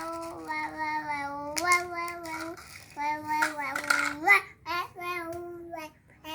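A young child singing in long held notes that break off and start again, with a couple of brief clicks mixed in.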